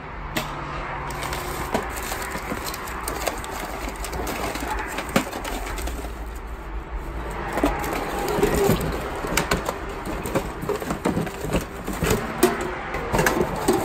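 Hands rummaging through a cardboard box of mixed items: paper and plastic rustling, with frequent clicks and knocks as tape rolls and tins are picked up and put down.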